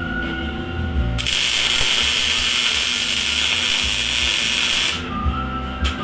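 A loud, steady hiss, like pressurised gas being let out, starting about a second in and lasting nearly four seconds before cutting off, with a short second hiss near the end.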